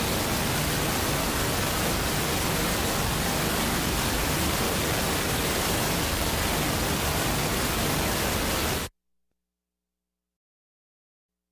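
A steady wash of static-like white noise with no beat or tone, forming the noise passage that ends an industrial music track. It cuts off abruptly about nine seconds in, into dead silence.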